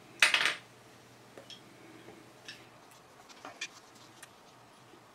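Yellow gas-rated thread sealing tape being pulled and wrapped onto a small brass fitting by hand: one short, loud crackle of tape near the start, then faint scattered ticks and rustles of the fingers working the tape on the threads.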